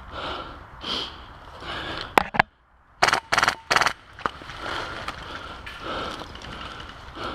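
Footsteps crunching at a walking pace, with two sharp clicks about two seconds in. About a second later come three short, loud bursts of rapid full-auto airsoft rifle fire.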